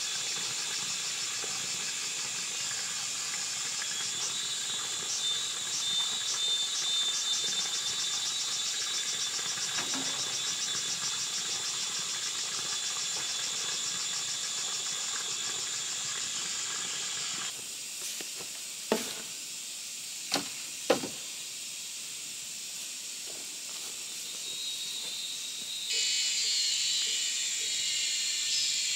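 A dense, high-pitched chorus of forest insects with rapid pulsing calls. A little past the middle it drops away suddenly. Three sharp knocks sound within about two seconds, and a pulsing insect call comes back near the end.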